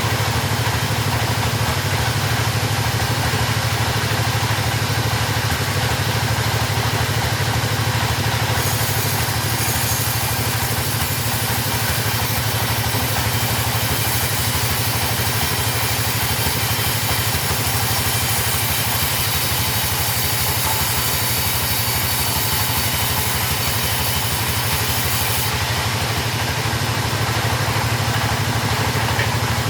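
Chainsaw engine running steadily at an even speed, with no revving.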